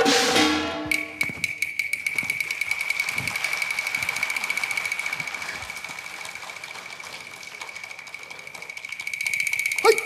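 Cantonese opera percussion: a ringing gong stroke, then a long, fast, even roll on a high-pitched percussion instrument that dips in the middle and swells again near the end, where a gong stroke with a rising pitch sounds.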